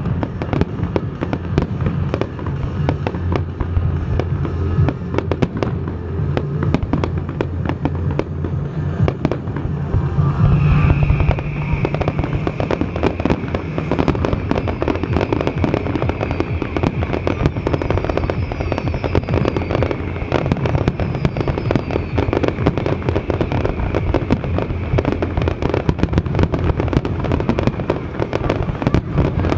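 Fireworks display: a continuous, dense barrage of shell bursts and crackling, loudest about ten seconds in. A high steady tone runs from there until near the end.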